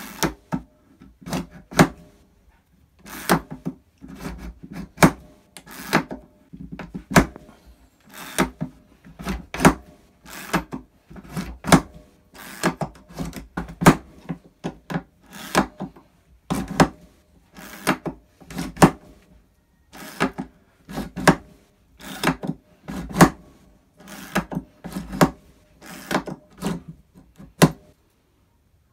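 ER Varney A956 Yankee-style pump-action ratchet screwdriver pumped in repeated strokes to back screws out of a softwood beam: a sharp metal-and-wood clack about once a second, in runs with brief pauses.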